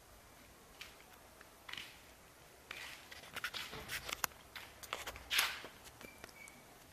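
Footsteps on a concrete floor with rustling handling noise and scattered light knocks and scuffs, getting busier about halfway through; the car's engine is not running.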